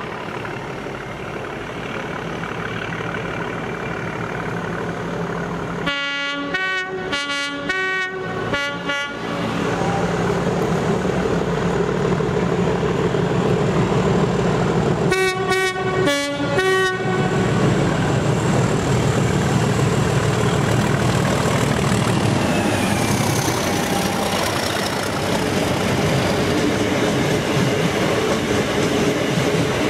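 Class 37 diesel locomotive 37 800 sounding its two-tone horn in rapid alternating high-low blasts, one run a few seconds in and another about halfway through. Between and after the blasts comes the loud, steady rumble of the locomotive and the Class 375 unit it is hauling as they pass.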